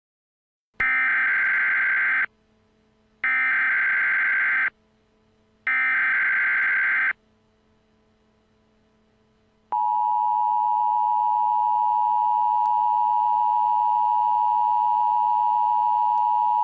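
Emergency Alert System SAME header: three identical bursts of buzzy digital data tones, each about a second and a half long, with short gaps between them. About two and a half seconds later comes the steady two-tone EAS attention signal, which holds for the last seven seconds.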